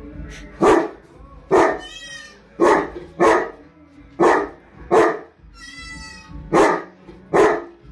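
Saint Bernard barking at a toy cat, eight barks at about one a second. Between them, a toy cat meows twice, a held, wavering call each time.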